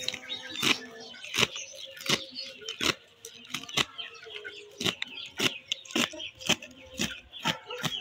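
Knife chopping fresh spinach leaves on a plastic cutting board: a run of sharp knocks, about one to two chops a second, slightly uneven.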